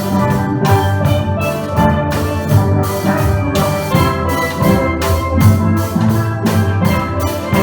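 A steel pan band playing an upbeat tune, many pans struck together in a lively rhythm, with drums keeping a steady beat underneath.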